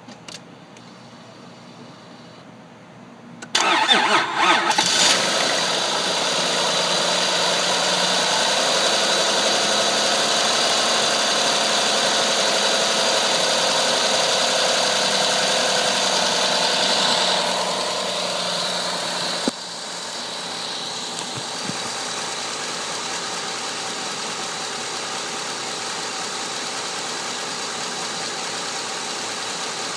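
Honda Odyssey engine cranking briefly on a low battery and catching about three and a half seconds in, then running at a fast idle with its new timing belt exposed. A little after halfway the sound drops, with a click, and the engine runs on at a steady, quieter idle.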